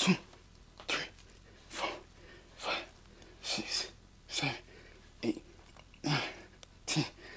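A man breathing out hard with each push-up rep on a kettlebell: sharp, forceful breaths, some with a grunt in them, about one a second, nine in all.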